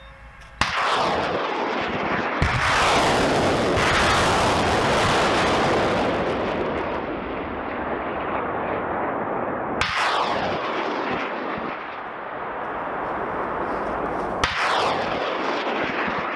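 Rockets launching from an M270 multiple launch rocket system: four launches, each a sharp bang followed by a long rushing roar that falls in pitch. They come about half a second in, two seconds in, ten seconds in and fourteen and a half seconds in, and the sounds overlap.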